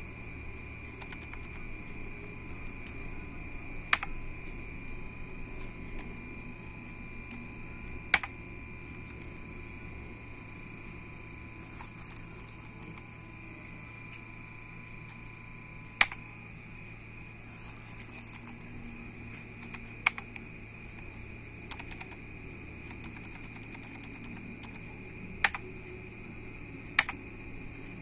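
Single computer keyboard keystrokes, about seven sharp clicks a few seconds apart, as the BIOS boot menus are stepped through. Under them runs the steady hum of the running PC with a faint high whine.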